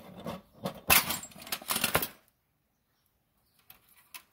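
Clatter and clinks of metal hand tools and a steel part being handled for about two seconds, then a few faint clicks near the end.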